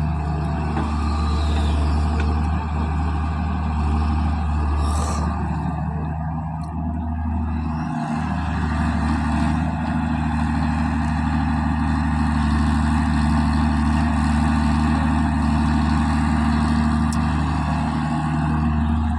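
Diesel engine of a backhoe loader running steadily at a constant speed, with a short hiss about five seconds in.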